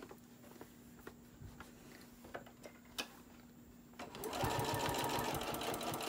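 Quiet for about four seconds apart from a few faint clicks and a low hum, then an electric sewing machine starts stitching through the layers of a quilted fabric hot pad, with a rapid, even needle rhythm that carries on to the end.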